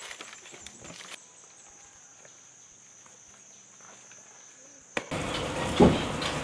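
Steady high-pitched insect drone with a few clicks in the first second. About five seconds in it cuts off abruptly into louder, even noise with one strong thump.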